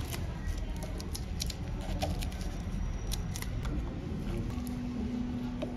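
Faint scattered clicks and taps of gloved hands handling a smartphone's mid-frame on a silicone repair mat, over a steady low background noise. A steady low hum comes in about four and a half seconds in.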